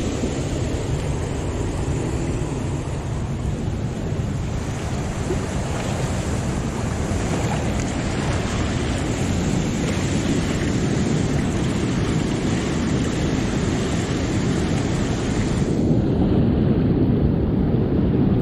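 Fast whitewater rushing through a spillway, a loud steady wash of churning water, with wind buffeting the microphone. The sound turns duller near the end as the high hiss drops away.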